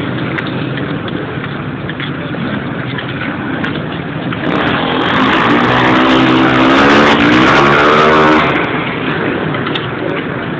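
A pack of short-track (flat-track) racing motorcycles running round a dirt oval. About four and a half seconds in they pass close by, with several engine notes rising and falling together, then draw away about four seconds later.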